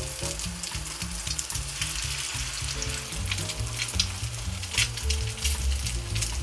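Beaten egg cooking in an oiled frying pan, with a steady sizzle and scattered sharp clicks and scrapes of a utensil against the pan.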